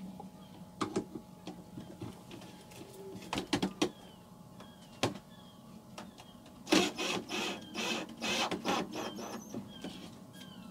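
Ryobi cordless drill-driver driving a screw home into wooden cabinetry in short bursts, the longest run about two-thirds of the way through, with scattered clicks and knocks of handling before it.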